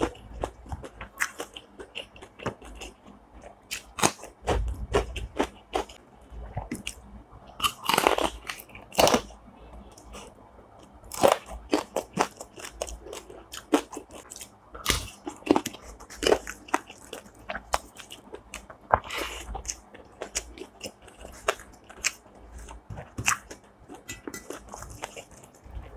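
A person eating close to the microphone: chewing, broken by sharp, irregular crunches and bites, several of them loud.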